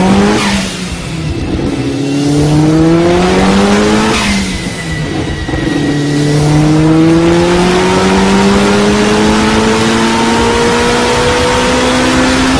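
Heavily modified turbocharged Mitsubishi Lancer Evolution IX (4G63 inline-four, about 590 hp at the wheels) making a full-throttle pull on an all-wheel-drive chassis dyno. The engine note climbs and drops at gear changes about a third of a second in and again about four seconds in, each shift with a brief rush of noise, then climbs slowly through the next gear.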